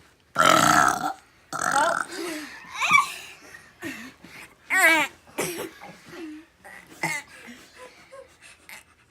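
Children burping: one loud burp about half a second in, lasting under a second, then a string of shorter burps and vocal noises.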